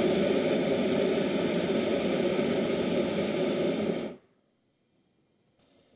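Hot-air balloon's propane burner firing with a loud, steady hiss, shutting off abruptly about four seconds in as the blast valve closes.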